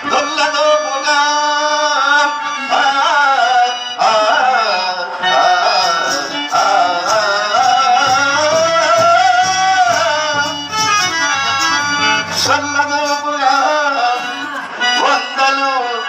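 Harmonium accompaniment under a drawn-out, gliding sung verse in a traditional Indian style.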